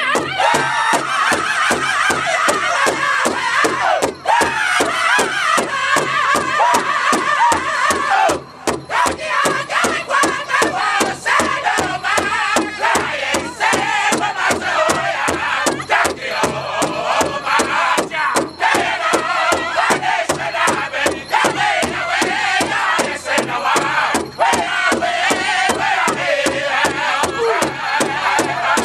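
Northern-style powwow drum group singing in loud, high voices over a steady unison beat, several men striking one large hide-covered drum with drumsticks. The voices break off briefly about eight seconds in while the drumbeat carries on.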